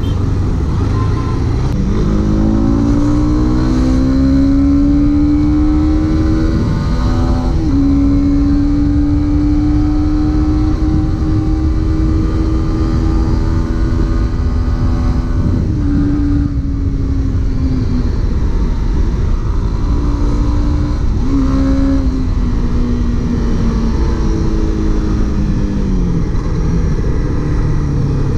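Honda CB300R's 286 cc single-cylinder DOHC engine heard from the rider's seat while riding: revs climb hard from about two seconds in, a gear change comes around eight seconds, the engine holds high revs, then eases off around sixteen seconds. It picks up and shifts again around twenty-two seconds and winds down near the end, over a steady rush of wind and road noise.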